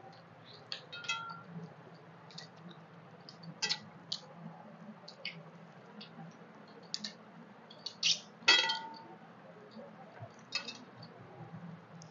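Fingers scraping and tapping stainless steel plates while eating rice by hand, with scattered small clicks and a few metallic clinks; the loudest clink, about eight and a half seconds in, rings briefly.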